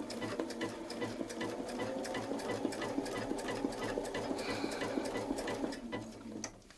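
Domestic sewing machine stitching at a steady, quick pace, the needle stroking up and down in an even rhythm, stopping shortly before the end.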